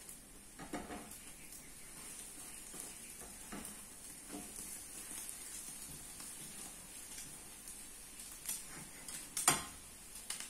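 French toast and a pancake sizzling in nonstick frying pans, with spatulas scraping and knocking against the pans as the food is turned and lifted. The loudest knock comes near the end.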